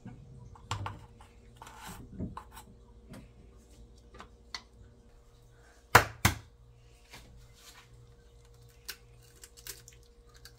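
Scattered light clicks and knocks of hands handling ingredients and utensils at a stainless-steel mixing bowl, with two sharp knocks close together about six seconds in, over a faint steady hum.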